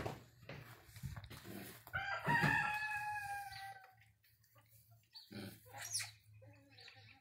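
An animal's long call about two seconds in, holding one pitch for under two seconds and falling slightly at the end. Light knocks and rustles come before and after it.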